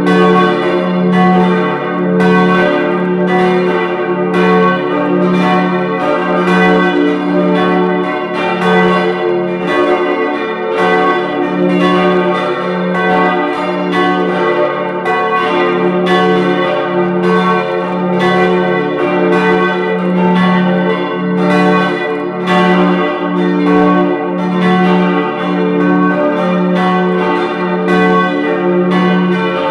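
Full peal of four church bells, tuned to d', f-sharp', a' and b', all ringing together: a continuous stream of overlapping strikes with their tones ringing on between them.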